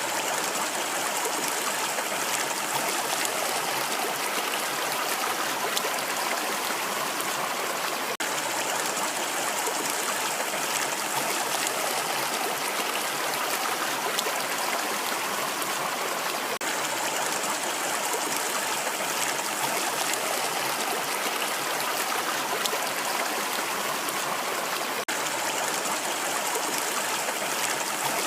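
Rushing water: a steady, even rush, with a faint brief break about every eight seconds.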